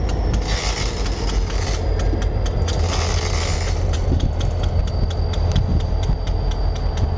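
Diesel locomotive engine running with a steady low drone as the locomotive moves slowly along the track. A fast, even ticking sits above it, with two short hissing patches, about half a second in and about three seconds in.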